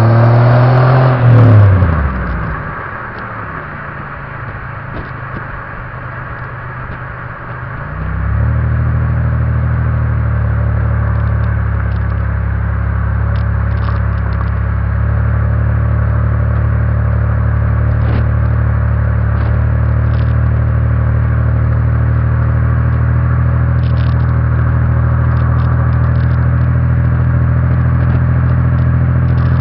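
Pontiac engine running through a stainless-steel exhaust. The revs fall away at the start and the sound drops quieter for several seconds. About eight seconds in it settles into a steady, even idle.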